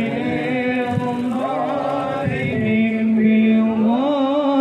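A male voice chanting sholawat, the Arabic blessings on the Prophet Muhammad, in long held notes that bend and slide in pitch.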